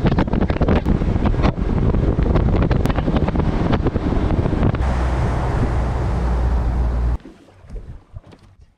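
Wind rushing and buffeting the microphone on a bass boat underway, with a low rumble underneath. It cuts off abruptly about seven seconds in, leaving a few soft footsteps on the boat's carpeted deck.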